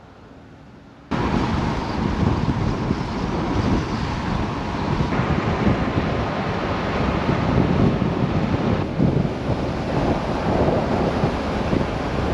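Wind rushing over a camera mounted on the outside of a moving Toyota Tacoma pickup, with tyre and road rumble; it starts suddenly about a second in after a faint hiss and stays loud and even.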